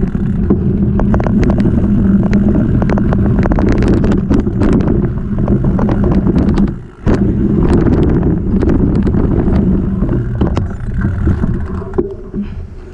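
Mountain bike tyres rumbling over wooden boardwalk planks, with rapid clattering and rattling from the bike and wind buffeting the microphone. The noise drops out briefly about seven seconds in, then resumes. It is quieter near the end, where the bike is on dirt.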